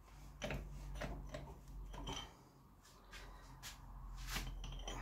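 Faint irregular clicks, taps and scraping of metal and plastic parts being handled while a sprayer pump is taken apart by hand, over a low steady hum.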